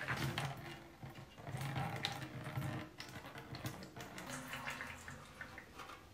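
Liquid celadon glaze poured from a ceramic scoop into an unfired clay sink basin: a soft, uneven pouring and splashing.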